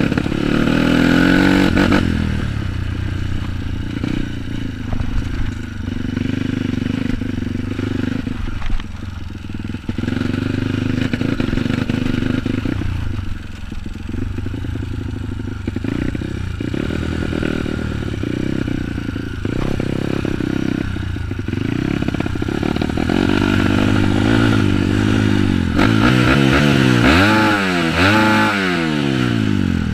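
Bored-up Kawasaki KLX single-cylinder four-stroke dirt bike engine being ridden, its revs rising and falling with the throttle. Near the end the revs swing up and down quickly several times.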